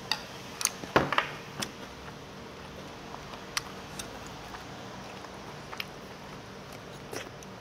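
Scattered clicks and taps of a spoon and chopsticks against dishes during eating, several close together near the start and the loudest about a second in, over a steady low hum.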